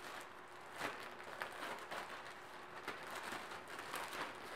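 Clothing and its packaging rustling and crinkling in irregular bursts as a newly delivered garment is unpacked and handled.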